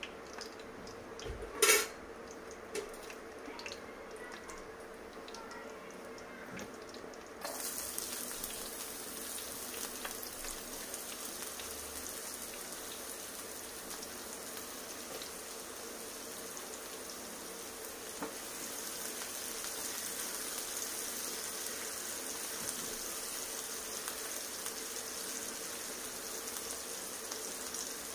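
Cumin seeds ticking faintly in hot oil in a non-stick frying pan, with one sharp knock about two seconds in. A little over seven seconds in, chopped onions go into the hot oil and a steady sizzle starts suddenly and runs on as they fry and are stirred.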